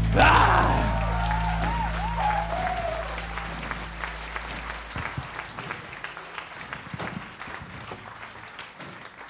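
Audience applauding as the rock band's final chord rings on and dies away about four to five seconds in; the clapping then carries on alone and slowly fades.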